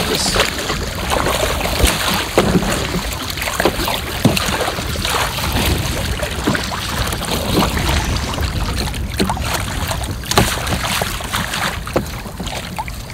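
Kayak paddle strokes splashing in choppy water, with wind buffeting the microphone.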